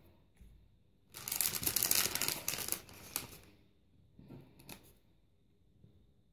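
Paper slips and plastic being handled and rustled: about two seconds of dense, crinkly rustling, then a couple of fainter brief rustles.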